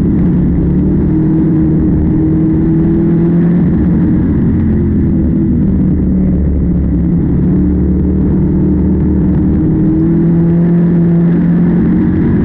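Farm machinery engine running steadily at working speed, its pitch wavering slightly up and down.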